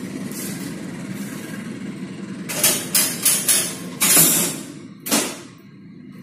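Railway semaphore signal arm being returned to the horizontal stop position: a run of five or six sharp metallic clanks from the arm and its lever-and-wire mechanism, starting about two and a half seconds in and loudest near four seconds. Under them, a diesel locomotive's engine drones steadily and fades away near the end.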